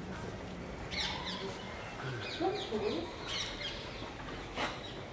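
Birds chirping, with short, sharp, falling calls repeating every second or so over the steady outdoor background.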